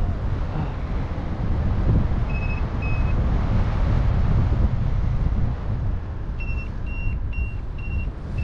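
Wind rushing over the microphone in paragliding flight, with a variometer beeping in short high tones: two beeps about two seconds in, then a run of four evenly spaced beeps near the end. This is the tone a vario gives in rising air.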